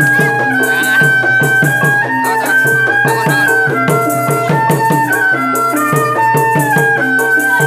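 Betawi ondel-ondel street music playing an Indian song tune: a high melody of long held notes stepping from pitch to pitch over a steady hand-drum rhythm.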